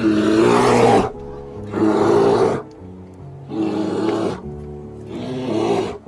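Brown bear roaring four times, each roar about a second long with short gaps between, over steady background music.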